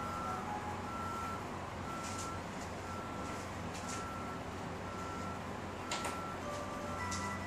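Grand Encore Legend musical clock's electronic chime playing a single high note repeated about once a second, with a lower note now and then, like a slow beeping. A few light clicks come through, the clearest about six seconds in.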